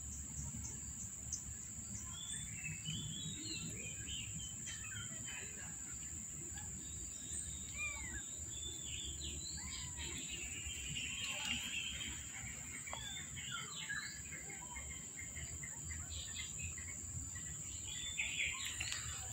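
Small birds chirping and twittering in many short calls, over a steady high-pitched whine.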